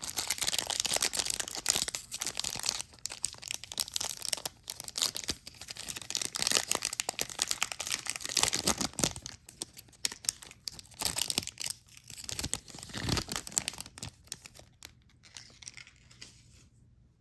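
A hockey card pack's wrapper being torn open and crinkled, with crackling that thins out and fades near the end.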